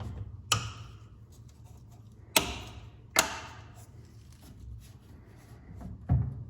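Four sharp clicks and knocks a second or more apart, from handling a Form 2 resin 3D printer as its build plate is put back in.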